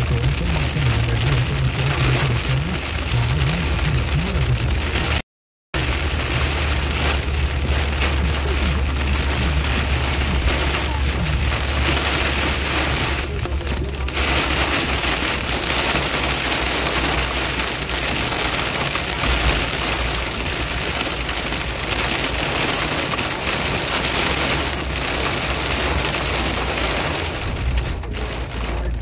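Steady hiss of rain and wet-road tyre noise from a car being driven, over a low engine and road hum. The sound cuts out completely for a split second about five seconds in.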